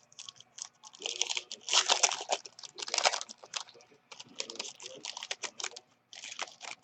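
Trading cards being handled: a rapid run of light clicks and rustles, thickest in the first half and sparser toward the end.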